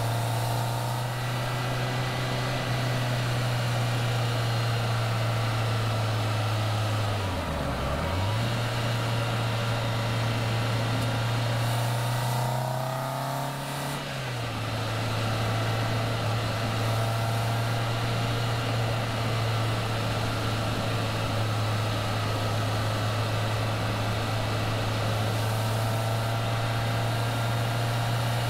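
Caterham Seven engine running at a steady cruise under an even haze of wind and road noise. About a quarter of the way in the engine note dips sharply and comes straight back; about halfway it climbs a little and then falls back.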